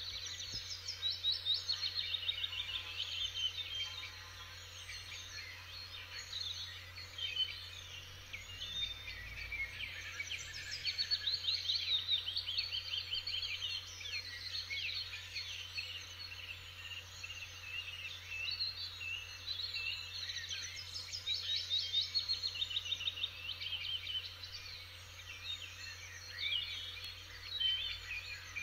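Several songbirds singing at once, overlapping runs of quick chirps and trills that come and go throughout.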